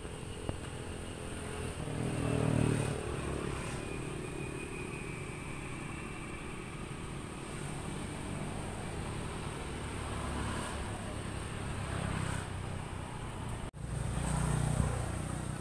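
Motor vehicle engine rumble, as of passing traffic, swelling louder about two seconds in and again near the end.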